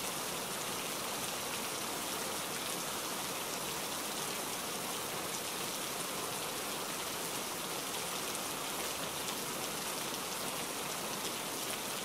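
Heavy rain falling steadily, a dense even hiss of many drops hitting surfaces.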